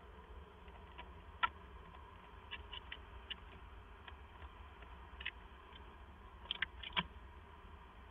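Barn owl biting and pecking at a cabled plastic fixture, its beak making a scatter of sharp clicks and taps. The loudest clicks come about a second and a half in and in a quick cluster near seven seconds.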